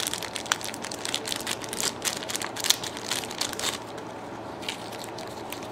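Crinkling and rustling of packaging being handled by hand, made of many small crackles that are busy for the first few seconds and thin out toward the end.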